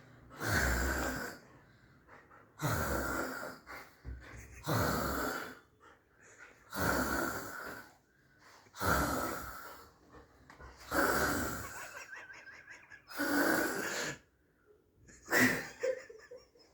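A person snoring in a steady rhythm, eight rasping breaths about two seconds apart, the last one shorter.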